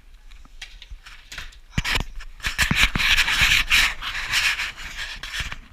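A dog moving about, with scattered clicks and knocks, then a stretch of rustling, rubbing noise, loudest about three to four seconds in.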